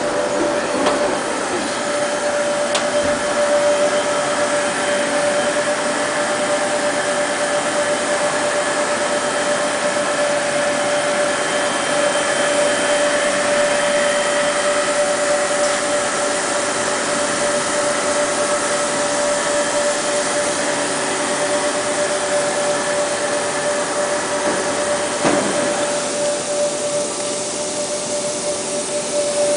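Skoda W200H NC horizontal boring mill running under power: a steady mechanical whine with one constant tone over the hum of its drives, easing slightly near the end.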